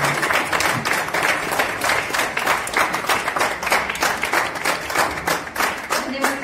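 An audience applauding with steady hand clapping, the separate claps coming several a second.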